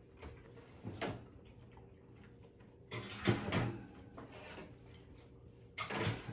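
A man eating a bite of seared wagyu steak: a short click about a second in, then louder mouth and chewing noises around three seconds in and again near the end, over a faint steady hum.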